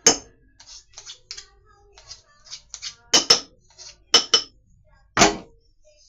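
Kitchen utensils clicking and knocking against dishes and a work surface during food preparation, a run of light irregular taps broken by several sharp louder strikes, some with a brief metallic ring.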